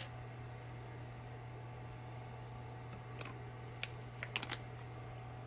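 A few light clicks and taps of small plastic lens parts being handled and set down, once about three seconds in and several in quick succession near four seconds, over a steady low hum.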